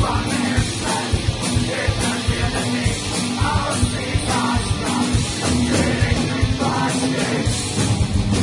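Live heavy rock band playing loud: distorted electric guitars, a drum kit and a male singer's vocal phrases through a club PA.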